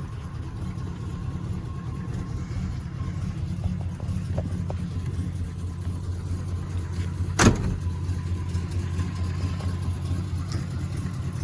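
1971 Oldsmobile Cutlass S engine idling steadily, with one sharp knock about seven and a half seconds in.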